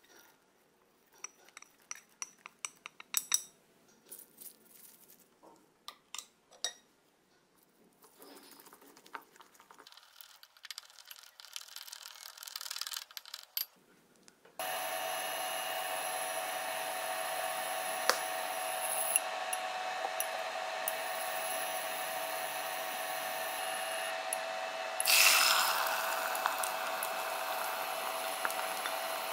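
A utensil clicking and clinking against a ceramic dish as eggs and chopped green onion are beaten. About halfway through, this gives way suddenly to steady sizzling as the egg mixture cooks in a hot pan, briefly louder a little before the end.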